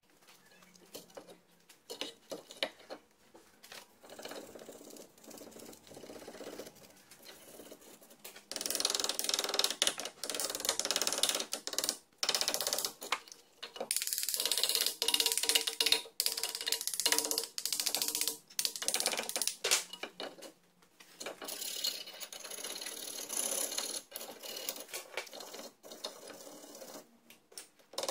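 A hand tool scraping and scrubbing rust and scale off a rear brake caliper in rapid rough strokes. It comes in three long spells, the first starting about a third of the way in.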